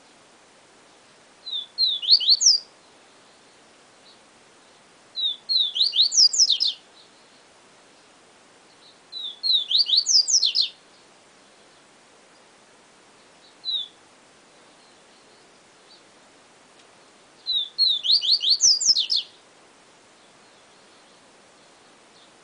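A papa-capim (Sporophila seedeater) singing its 'siu siu professor' song: four short phrases of quick, high notes sweeping up and down, several seconds apart, with one lone short note between the third and fourth phrases.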